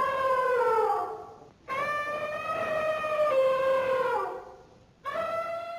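Three long, drawn-out animal calls, each a clear pitched tone that slides down in pitch, with short breaks between them.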